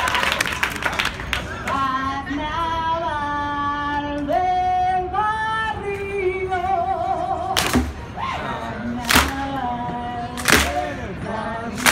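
Singing in a live street performance: long held notes that step up and down in pitch, with vibrato. In the second half, sharp percussive hits land about every second and a half.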